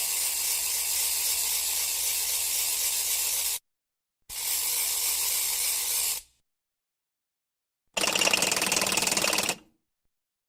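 Percussion sound effects: a steady hissing roll that stops at about three and a half seconds and returns briefly, then after a gap a separate rapid buzzing roll of very fast even strokes lasting about a second and a half near the end.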